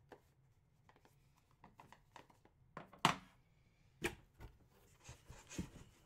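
Cardboard boxes being handled: a few faint, sharp knocks, the loudest about three seconds in, then a quicker run of light knocks and rubs near the end as a cardboard box is lifted out.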